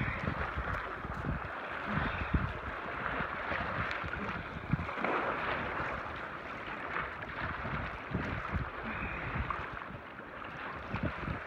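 Choppy waves splashing and washing against shoreline boulders, with wind buffeting the microphone in uneven gusts.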